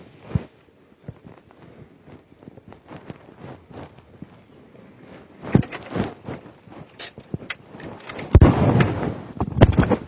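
Sparse handling sounds around a parked car, with no added effects: a faint background, then scattered clicks and knocks, and a louder rustling, bumping stretch with sharp clicks near the end, as of a seatbelt being undone and a car door being opened.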